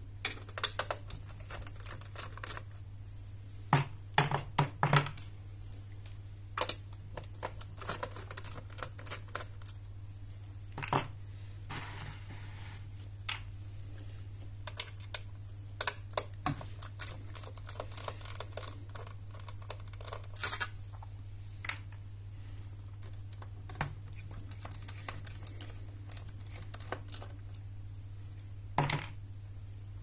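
Small screwdriver clicking and scraping on the screws of a Dell Latitude E6320 laptop's plastic base cover as they are undone, giving scattered sharp clicks and taps, some in quick clusters. A steady low hum sits underneath.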